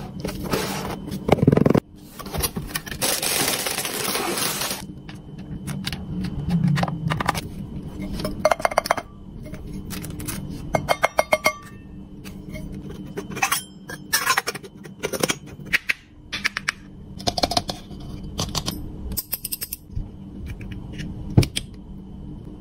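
Miniature toy cookware being unpacked and handled: a few seconds of rustling packaging near the start, then a long run of small clinks, taps and rattles as the little steel pot and lid, the frying pan and the utensils are picked up and set down.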